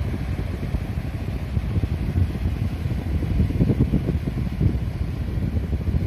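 Small sea waves washing and rustling onto a pebbly beach, under a heavy, uneven rumble of wind buffeting the microphone.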